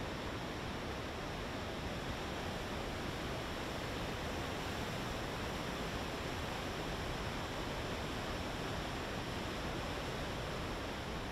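Steady rushing of a river in flood, its white water pouring through rapids.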